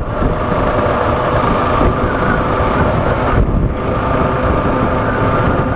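Motorcycle riding at road speed, heard through a helmet-mounted SJCAM SJ6 Legend action camera's built-in microphone: steady wind rush over the mic with the engine running underneath.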